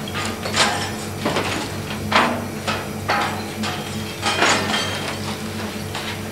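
Noise-art performance sound: a steady low hum under irregular crashing and clanking impacts, roughly one every second.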